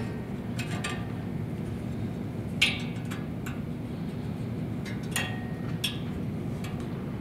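Light metallic clicks and taps as the blade guard is fitted back onto a bandsaw's upper blade guide and snugged with an Allen key, over a steady low hum.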